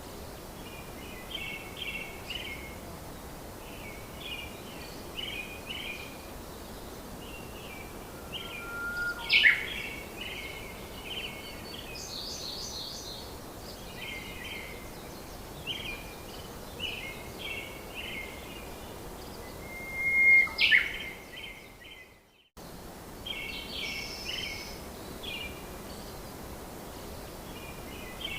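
Small birds chirping in short repeated clusters over a steady background hiss, with two louder rising calls, about nine and about twenty-one seconds in. The sound drops out briefly just after the second one.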